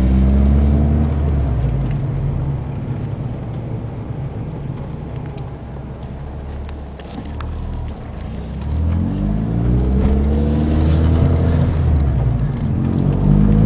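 Ford ZX2's 2.0-litre four-cylinder engine heard from inside the cabin, settling quieter through the middle, then pulling away with its pitch rising in climbs from about nine seconds in. The AC compressor is switched off, and the engine runs normally without the kicked-up idle.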